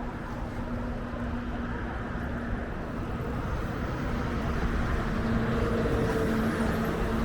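Wind buffeting the microphone over outdoor street noise, with a steady engine hum from a vehicle that grows louder toward the end.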